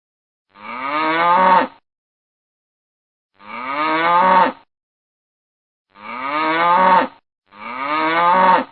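A cow mooing four times. Each moo lasts just over a second and drops in pitch at its end, with silence between the moos; the four look identical, so this is the same moo sound effect repeated.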